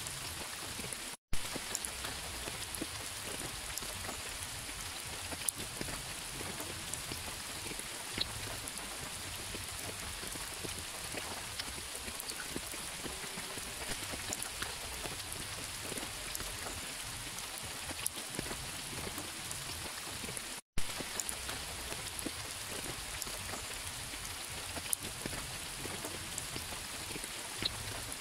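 Steady rain falling, an even hiss with single drops standing out as sharp ticks. Twice, about a second in and again about two-thirds of the way through, the sound cuts out for an instant and returns with a sharp click.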